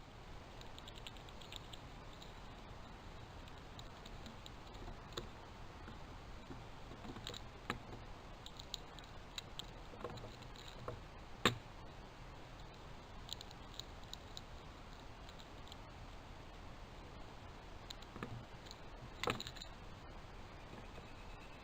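Faint scattered taps and clicks of squirrels and jays feeding and moving about on a picnic table, with a sharper knock about halfway through and another near the end.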